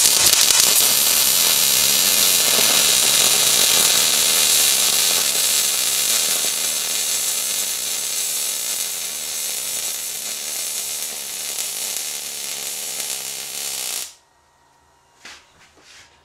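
Miller MIG welder running a continuous weld bead on a steel axle tube: a steady, loud sizzling arc that cuts off suddenly about two seconds before the end, followed by a couple of faint knocks.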